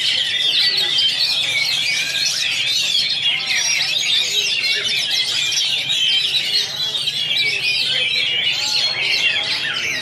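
Dense chorus of caged songbirds singing all at once, with an Oriental magpie-robin's song among it: many quick, overlapping whistles that rise and fall without a break.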